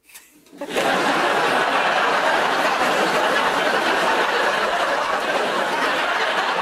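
Studio audience breaking into loud, sustained laughter about a second in, after a brief hush.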